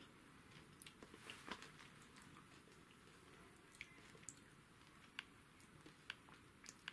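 Near silence: room tone with about half a dozen faint, scattered clicks.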